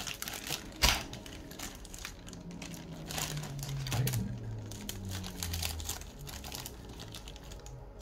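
Small clicks, taps and rattles of a camera cage and its top handle being handled and taken apart, with one sharper click about a second in. A low hum sits underneath for a few seconds in the middle.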